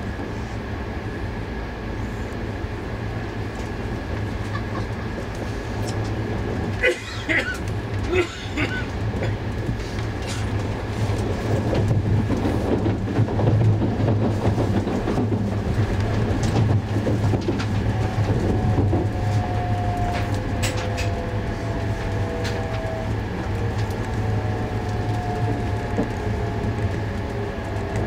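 Inside the passenger cabin of an E2-series Shinkansen running at speed: a steady low rumble of the running gear with a thin high steady tone. Two sharp knocks come about seven and eight seconds in, with a brief dip in level, and the rumble grows louder from about eleven seconds. A faint whine slowly falls in pitch through the last ten seconds.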